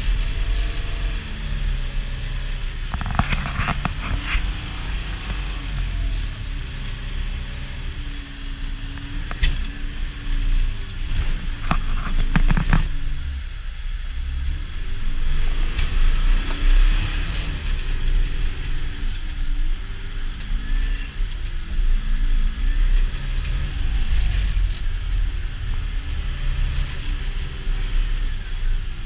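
A motor vehicle driving, its engine note rising and falling over a steady low rumble, with clusters of sharp knocks about three to four seconds in and again around twelve seconds.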